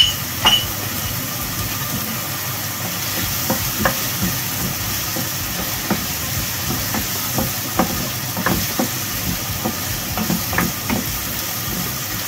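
Diced onions and mushrooms sizzling in a frying pan, with a wooden spatula stirring them and knocking against the pan irregularly. Two sharper clicks come right at the start.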